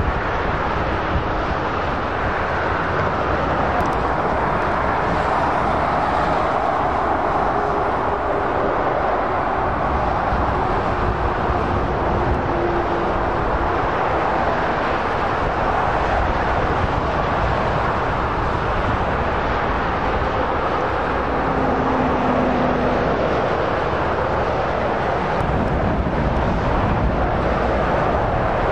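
Electric passenger trains running past at speed: a steady rushing roar of wheels on rail and air, with a faint hum that drifts slowly in pitch.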